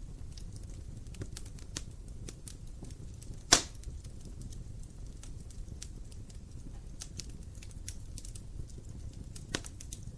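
Wood fire burning in a fireplace: a steady low rumble of the flames with scattered sharp crackles from the logs. There is one loud pop about three and a half seconds in and a smaller one near the end.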